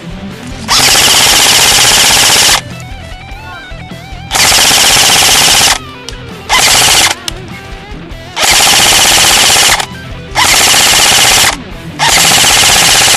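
Airsoft rifle firing BBs on full auto in six loud bursts, each lasting about half a second to two seconds, over metal background music.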